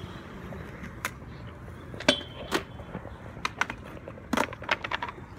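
Skateboard clacking and knocking on concrete: a string of sharp hits, the loudest about two seconds in with a short metallic ring, and a quick cluster of knocks near the end.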